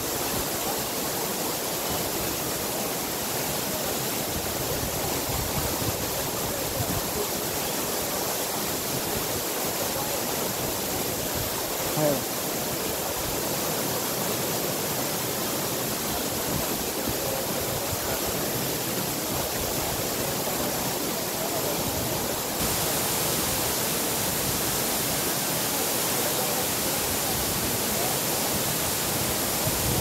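Waterfall pouring down a rock face into a plunge pool: a steady rush of falling water, stepping up slightly in loudness about two-thirds of the way through.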